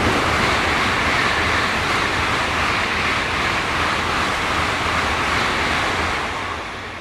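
Tokaido Shinkansen bullet train passing through the station at speed without stopping: a loud, steady rush of air and wheel noise with a low rumble underneath, swelling in sharply at the start and fading away near the end.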